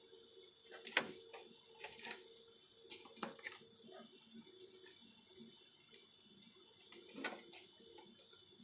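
Scattered light clicks and knocks of small objects being handled, the loudest about a second in and another about seven seconds in, over a faint steady hum.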